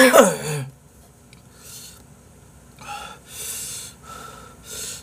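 A man coughing and clearing his throat after choking on spicy noodles, the fit tailing off about half a second in, followed by several short, noisy breaths.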